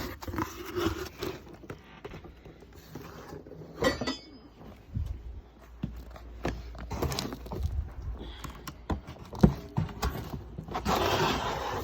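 Powder-coated mounting brackets and other kit parts clinking and knocking as they are handled and set down, with scattered sharp knocks and a burst of rustling packaging near the end.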